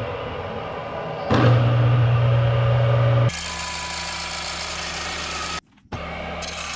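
Belt-driven chop saw cutting through steel angle iron. At first there is a loud, steady motor hum. About three seconds in it gives way to a steady, higher grinding of the blade in the metal, which breaks off briefly near the end and then resumes.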